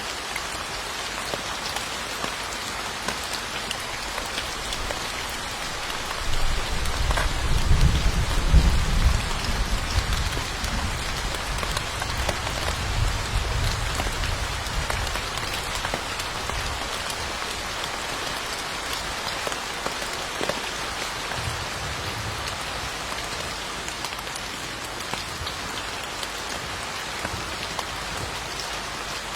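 Steady heavy rain falling, with a low rumble of thunder that builds about six seconds in, is loudest a couple of seconds later and dies away over several seconds. A fainter rumble follows later.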